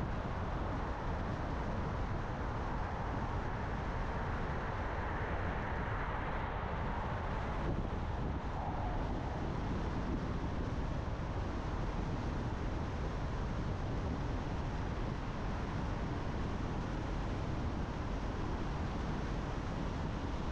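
A car driving along a road: steady tyre and engine noise, with no sudden events. The higher part of the noise drops a little about eight seconds in.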